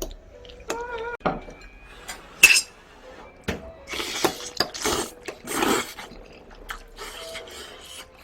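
Cutlery clinking against dishes, with one sharp ringing clink about two and a half seconds in, among lighter knocks and scraping.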